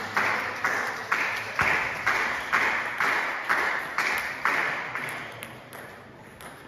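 Table tennis rally: the ball clicking off the paddles and the table about twice a second, each hit ringing briefly in a large hall, the rally ending about five seconds in.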